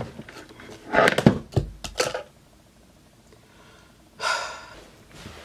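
A person's breath: a few short sharp knocks and breathy sounds in the first two seconds, then a long breath out like a sigh about four seconds in.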